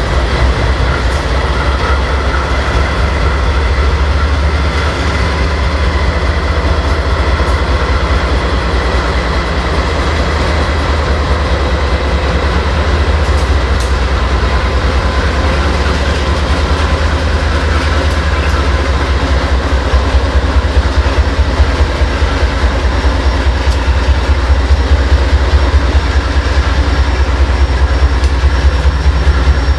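Freight train's diesel locomotives rolling across a steel girder bridge: a steady low engine drone with the wheels clacking over the rails. The clatter grows louder and more regular about two-thirds through as the second locomotive passes.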